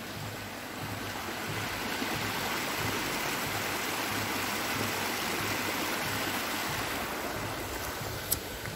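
Shallow stream running over stones: a steady rush of water that grows louder after about a second and eases off near the end. A single sharp click comes shortly before the end.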